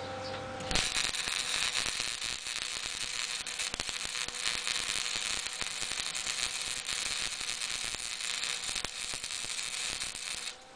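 Electric arc welding on a cracked exhaust manifold: a steady crackling hiss that starts abruptly about a second in and cuts off abruptly just before the end, one continuous weld bead.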